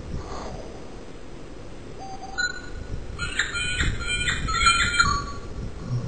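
Two birds fighting: a short call about two seconds in, then a run of rapid, warbling calls from about three seconds in.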